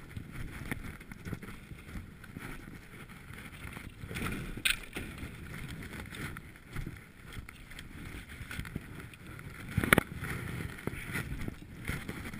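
Strong gusty wind buffeting the microphone, a low rumble that rises and falls, with a sharp knock about ten seconds in.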